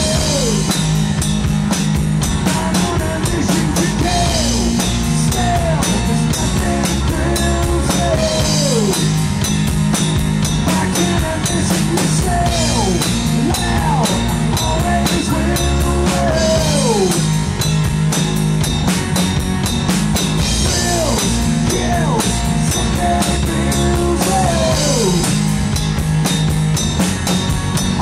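Live rock band playing: electric guitar, bass guitar and a Gretsch drum kit. A lead line keeps repeating a short phrase that slides down in pitch over a steady bass and drum beat, with no words picked up.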